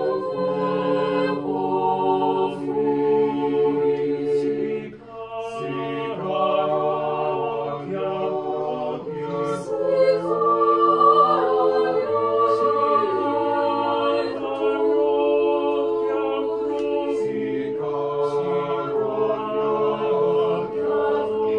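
Mixed chamber choir of men and women singing a cappella in several parts, holding sung chords with a brief breath pause about five seconds in.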